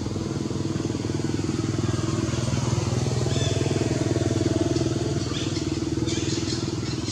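A small engine running steadily, growing louder to a peak about four seconds in and then easing off, as if passing by.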